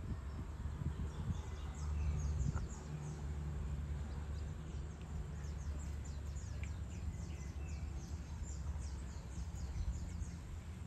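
Birds twittering with many quick high chirps, thickest from about halfway through, over a low steady rumble.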